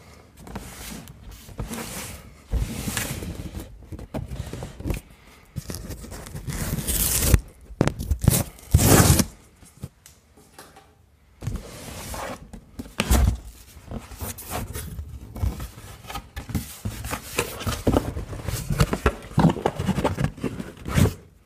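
Cardboard packaging being unpacked by hand: box flaps pulled open and cardboard scraping, sliding and rustling in irregular bursts, with two louder rushes a little before halfway.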